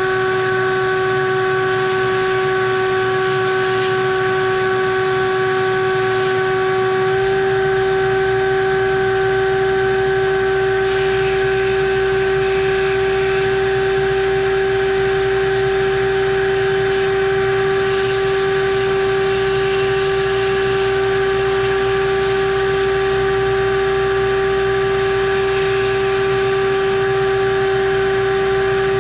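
Abrasive blast cabinet running: a steady machine whine over continuous hiss, with a low hum joining about seven seconds in and the hiss brightening at times.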